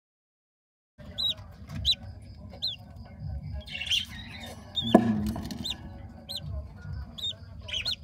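Lovebirds chirping: short, high chirps repeating about once or twice a second, starting about a second in, over a low rumble, with a single knock about five seconds in.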